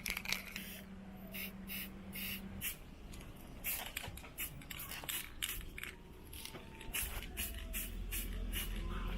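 Aerosol spray-paint can spraying in many short, quick hisses, a few a second, with a faint low hum underneath at the start and near the end.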